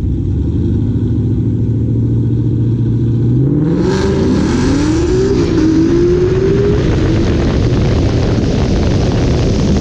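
A 2018 Mustang GT's 5.0 V8 running on nitrous holds a steady note on the line, then launches about three and a half seconds in. The revs climb, fall at an upshift and climb again under full acceleration, with a loud rush of noise from the launch on, and the tires spin briefly coming out of the hole.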